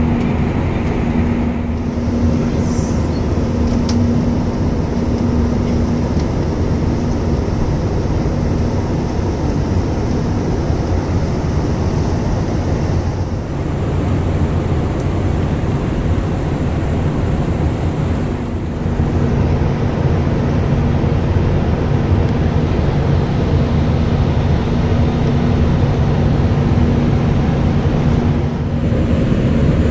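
Airbus A320 cabin noise in flight: a steady rush of airflow with a low engine hum and a few steady droning tones. There are brief dips about a third, two thirds and near the end of the way through.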